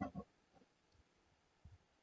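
Near silence: room tone, with two faint short soft clicks right at the start and a couple of fainter ones near the end.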